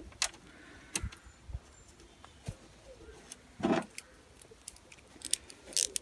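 Small steel washers and new nylock nuts clinking and clicking as they are handled and threaded by hand onto the studs of a door latch: scattered single clicks, a longer rub about two thirds of the way through, and a quick run of clicks near the end.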